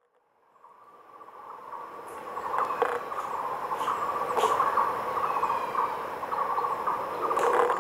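A dense chorus of insects trilling, fading in from silence over the first couple of seconds, with a couple of brief ticks.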